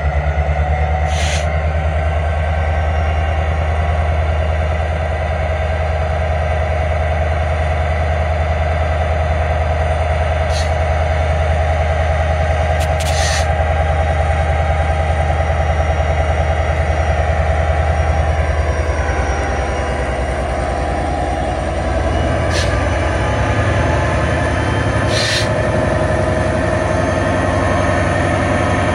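EMD SD70ACu diesel-electric locomotive approaching slowly and drawing alongside, its diesel engine giving a steady low rumble with steady higher tones over it. A few sharp clicks are scattered through, and one tone slides downward about two-thirds of the way in.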